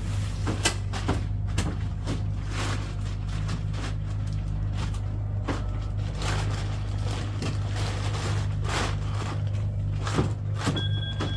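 Person climbing and shifting about inside a nylon truck-bed tent on an air mattress: fabric rustling with scattered light knocks and bumps, over a steady low hum.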